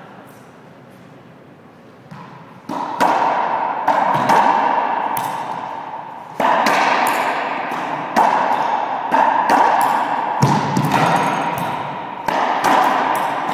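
Racquetball rally: sharp strikes of the ball off racquets and the court walls, roughly one a second, starting about three seconds in. Each strike rings on in the enclosed court.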